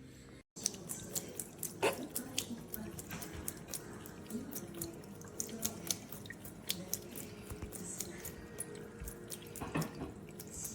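Water dripping and splashing, with many irregular sharp drips and clicks. It starts after a brief moment of silence about half a second in.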